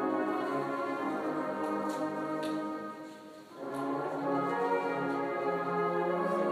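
Marching band's brass instruments playing sustained chords; the music dips briefly a little past the middle, then the next phrase comes back in full.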